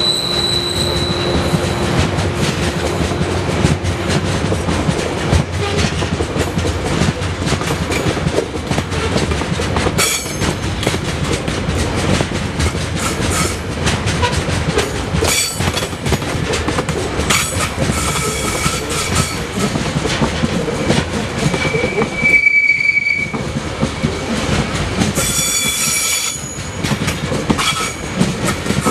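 Container freight train's wagons passing close at speed: a steady rumble and clatter of wheels on the rails, with a few brief high wheel squeals, the clearest about three-quarters of the way through.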